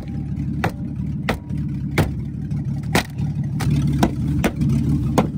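A car engine idling steadily, with sharp clicks at irregular intervals, about two a second.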